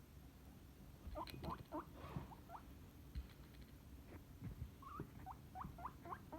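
Guinea pig squeaking: runs of short, rising squeaks, several a second, starting about a second in and again near the end, with a few soft knocks between.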